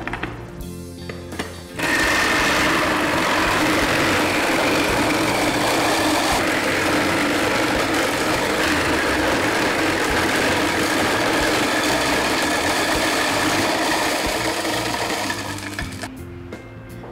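Fomac electric ice crusher running, its blades shaving ice cubes into fine snow ice. Starts abruptly about two seconds in, runs steadily, and dies away near the end.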